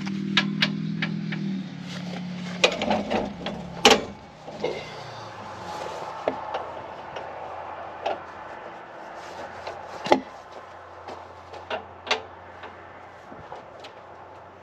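Scattered metal clanks and knocks as a gauge wheel is worked off a corn planter row unit, the loudest about four and ten seconds in. A low hum fades out in the first two seconds.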